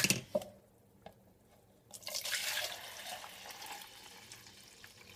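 Milk and mascarpone mixture poured from a stainless steel saucepan into a plastic pouring jug: a splashing pour that starts about two seconds in, strongest at first, then thins out. A few light knocks at the start.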